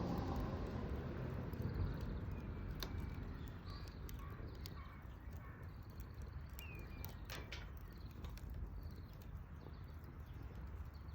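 Wood fire crackling, with a few sharp pops standing out over a low steady rumble. Small birds chirp faintly now and then.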